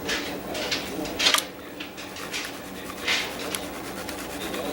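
Water sloshing and swishing in a Garrett gold pan as concentrates are washed down, in several short swishes, the loudest about a second in.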